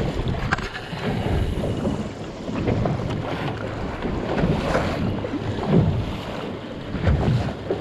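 Wind buffeting the microphone in uneven gusts, over choppy sea water splashing against a small boat's hull.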